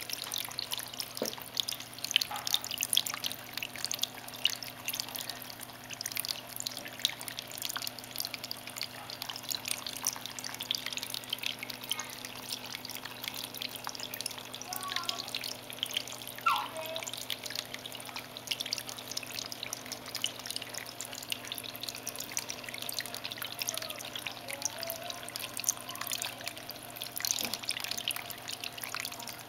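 Water trickling and dripping down a dart frog vivarium's water feature over wet soil and stones, a continuous patter of small drips, under a faint steady low hum.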